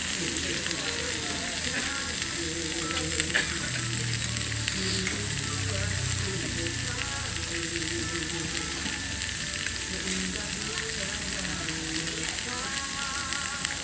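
Food sizzling on the hot grill ring of a tabletop steamboat-and-grill pan, a steady frying hiss.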